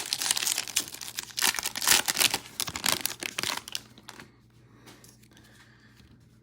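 A plastic trading card pack wrapper, a Donruss football fat pack, crinkling and tearing as it is ripped open by hand. The crackling stops a little under four seconds in.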